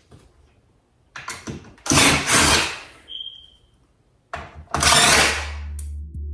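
Hand or power tool work on an old door frame during front door removal: a few clicks and three loud, harsh bursts, each under a second, with a short high ringing tone between the second and third. Low background music comes in near the end.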